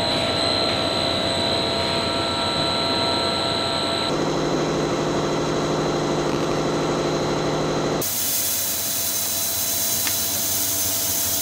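Plastic square-mesh net extrusion machine running: a steady mechanical drone and hiss with a thin, steady high whine. The mix of tones changes abruptly about four and eight seconds in.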